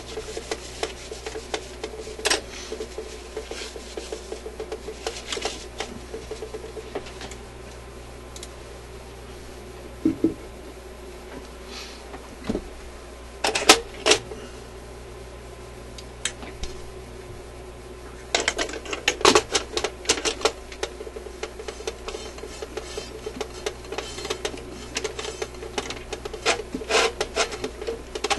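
Clicks, taps and scraping from handling the parts of a suitcase record player: the tone arm being moved and the turntable platter being fitted onto the spindle and worked with a screwdriver. The sounds come in scattered clusters, busiest about halfway through and again near the end.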